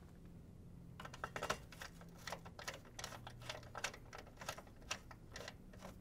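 Screwdriver driving screws through a PC motherboard into the metal standoffs of the case, heard as a run of small, irregular clicks and ticks starting about a second in.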